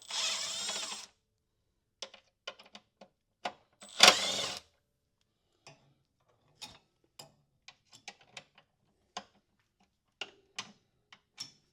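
A 1/4-inch drive socket ratchet working on bolts. There is a dense run of ratchet clicking over the first second and another around four seconds in, with scattered single clicks between and after.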